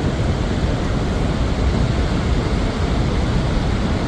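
Waterfall: a steady, deep rush of falling water with no breaks.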